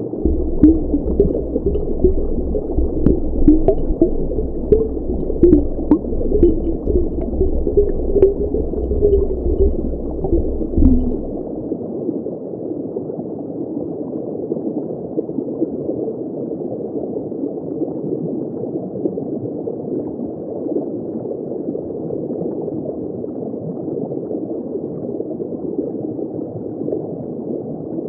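Underwater drone's thrusters running, heard dull and muffled from underwater, with wavering tones that rise and fall as the motors change speed. A low rumble cuts off abruptly about eleven seconds in, leaving a steady, muffled water hiss.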